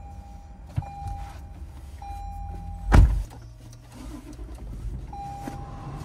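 A Toyota 4Runner's door shutting with a single heavy thump about three seconds in, while the car's electronic warning chime sounds in short steady tones that start and stop several times.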